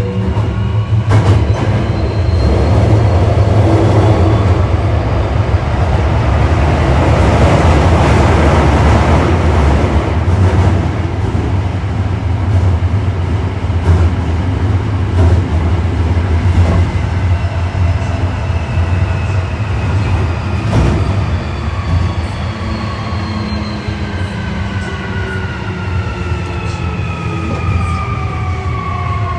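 Osaka Metro 1300 series subway car with Toyo IGBT-VVVF traction equipment, heard running from inside: steady wheel and motor rumble with occasional rail-joint clicks. In the last third several whining tones fall together in pitch, as the train slows for the next station.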